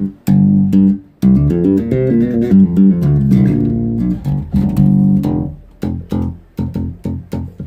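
Six-string Fodera electric bass played loud through a freshly retubed Aguilar DB751 bass amp that is working again. Ringing sustained notes and a run of changing notes come first, then quick short plucked notes near the end.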